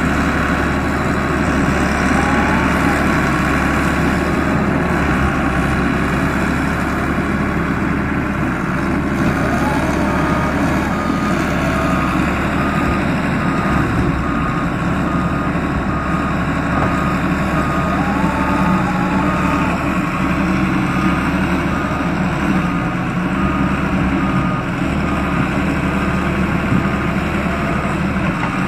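Doosan D140W wheeled excavator's diesel engine running steadily under work, with its alarm beeping in a steady, even series of short beeps.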